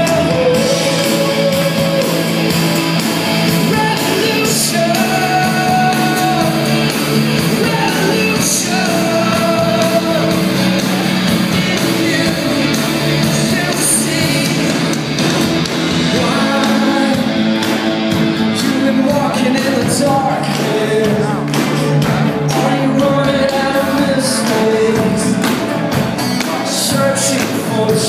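Live rock band playing, heard from the crowd in a large hall: electric guitars and drums with a man singing lead.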